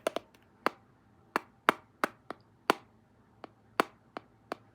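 A series of about a dozen sharp taps or clicks at an uneven pace, some with a short ring.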